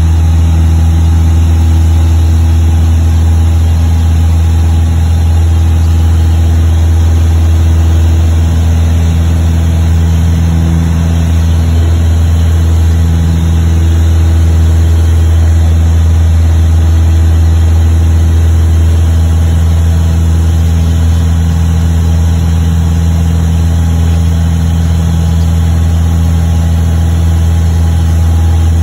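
Single-engine Piper PA-28's piston engine and propeller running at steady high power during the climb after take-off, a loud, even drone heard inside the cabin.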